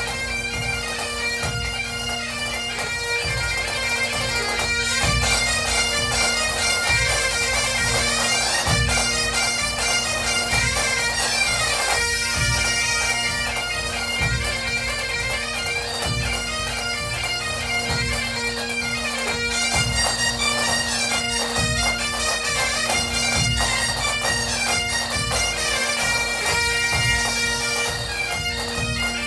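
Breton bagad (pipe band) playing: bagpipes carry a running melody over a steady, unbroken drone, with regular drum beats underneath.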